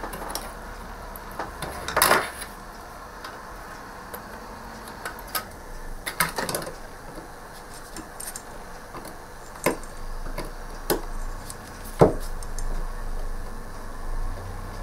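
About five sharp clicks and knocks, a few seconds apart, from a hand tool working at the solder joints of a ZX Spectrum circuit board.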